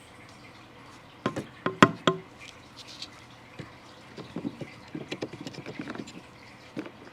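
Four or five sharp clinks with a brief ring, about a second in, then a scatter of light pattering clicks, as of small hard objects being set down or knocked together.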